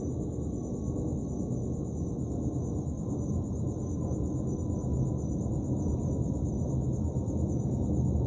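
Aeroplane passing overhead at night, a low steady rumble that slowly grows louder, with crickets chirping in a fast, even, high-pitched trill.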